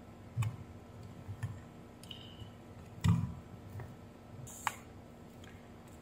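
Soldering iron and circuit board handled during desoldering: a few light knocks and clicks, the loudest about three seconds in and a sharp click near five seconds.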